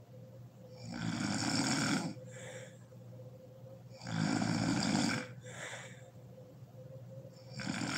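A sleeping woman snoring loudly, close to the microphone: three snores about three seconds apart, each about a second long and followed by a softer breath out. The third snore starts near the end.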